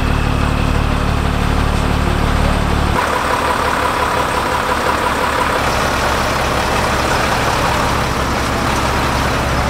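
Four-wheel-drive tour bus's engine idling: a steady low hum whose tone shifts about three seconds in.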